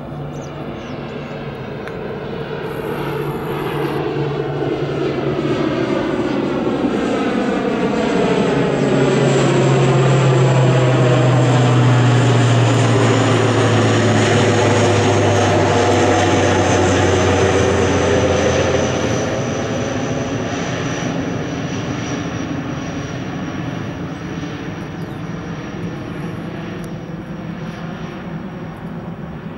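ATR 72-500 twin-turboprop climbing out overhead: the drone of its Pratt & Whitney PW127 engines and propellers swells, peaks around the middle, drops in pitch as the aircraft passes, then fades. A faint high whine runs above it and slowly falls.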